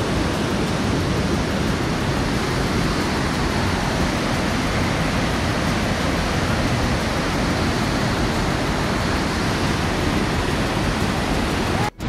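Steady rush of running water at a radon spring, cutting off suddenly near the end.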